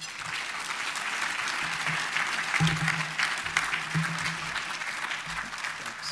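Audience applauding: a dense, steady clatter of many hands clapping that thins out near the end.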